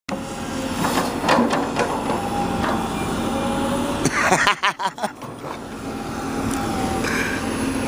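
Caterpillar 324 long-reach excavator running, its diesel engine and hydraulics humming steadily as the boom holds the bucket high. About halfway through, a short burst of choppy rustling on the microphone.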